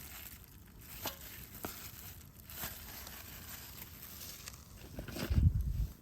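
Crinkling and rustling handling noises with scattered small clicks, and a brief low rumble a little after five seconds in.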